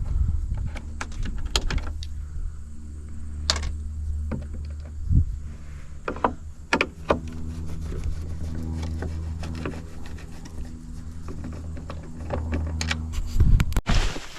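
A motor running steadily with a low hum, with scattered clicks, rattles and knocks over it; it cuts off abruptly near the end.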